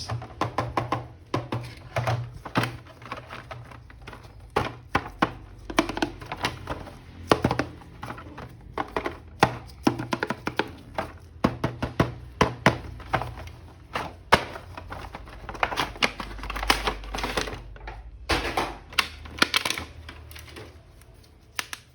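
Irregular clicks, taps and knocks of hard plastic toy figures and parts being handled, several a second with short pauses.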